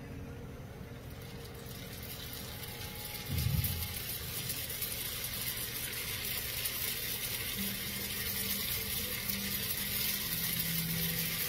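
Crab rangoons deep-frying in hot oil in a cast iron skillet: a hissing sizzle that builds and grows louder after they go into the oil. A single dull thump about three and a half seconds in.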